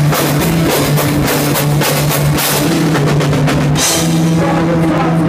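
Live rock band playing loud: electric guitars over a drum kit with dense cymbal crashes and bass drum. About four seconds in, the cymbals stop and the guitars ring on.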